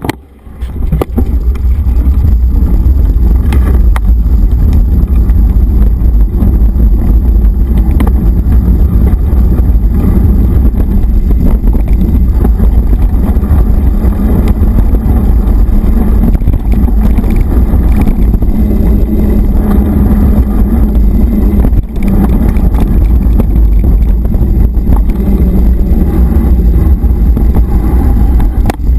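Loud, steady low rumble of wind buffeting and rough-ground vibration on a camera carried on a mountain bike ridden fast over a dirt track, with scattered knocks from bumps. It sets in abruptly within the first second as the ride gets under way.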